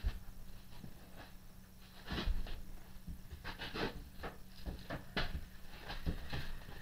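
Scattered light knocks, clicks and rustling of someone handling parts and moving around a mill-drill, a handful of separate taps spread through.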